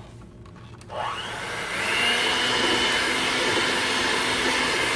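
Electric mixer switched on about a second in, whining up in pitch as it gets to speed, then running steadily at medium-high speed beating the cream cheese mixture.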